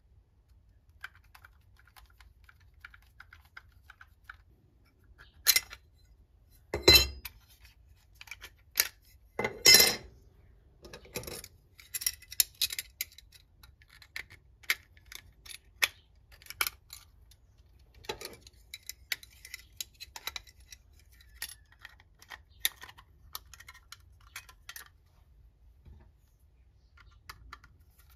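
Metallic clicks and clinks of gangable steel electrical switch boxes being taken apart and fitted together by hand, with a screwdriver working the side-wall screws. A few louder knocks come between about five and ten seconds in, then many light ticks.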